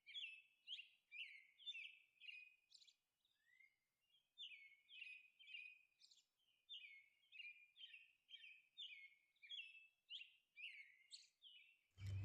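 Faint bird chirps: short, high, hooked chirps repeating about two to three times a second, with a short pause about two seconds in.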